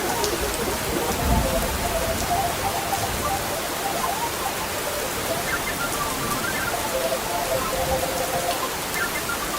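Steady rain falling, an even hiss of drops, with a brief low rumble about a second in.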